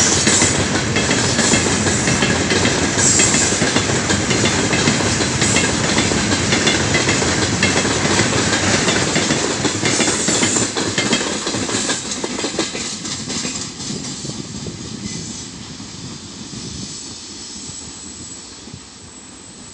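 Heavy freight train of open gondola wagons rolling past, steel wheels rumbling and clattering on the rails. From about twelve seconds in the sound fades steadily as the last wagons go by and the train draws away.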